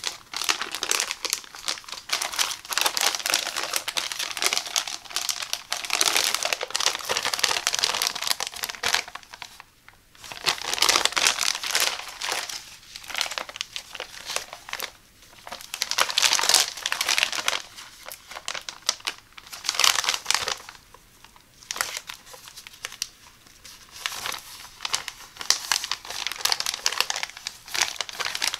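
Clear plastic packaging bags and a PEVA shower curtain liner crinkling and rustling as hands open, pull and fold them, in bursts of a few seconds with short quieter pauses between.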